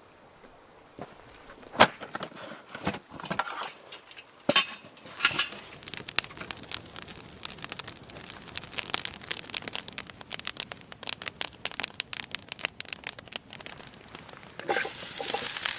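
Small wood campfire crackling and popping, with sharp snaps, two of them loud near the start. Shortly before the end a loud sizzle begins as asparagus drops into a hot frying pan over the fire.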